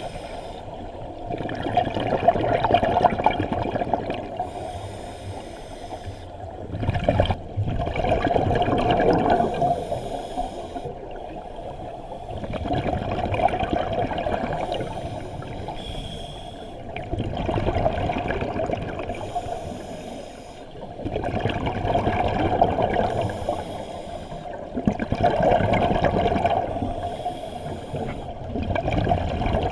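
Scuba diver breathing through a regulator underwater: a short hiss on each inhale, then a bubbling burst of exhaust bubbles on each exhale, repeating about every four to five seconds.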